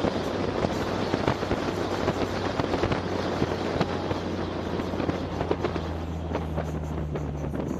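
Polaris Slingshot driving, its engine a low hum under a dense, irregular crackle of sharp pops and clicks. The engine hum comes up more strongly in the last couple of seconds.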